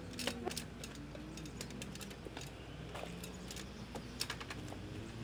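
Scattered light clicks and taps at an irregular pace over a faint steady hum.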